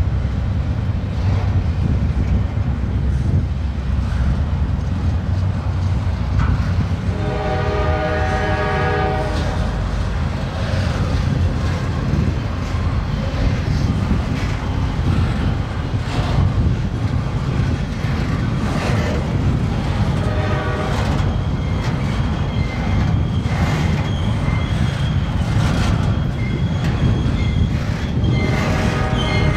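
A freight train rolling past with a steady, loud rumble and intermittent wheel clicks. A diesel locomotive air horn sounds for about two seconds around a quarter of the way in, and again near the end.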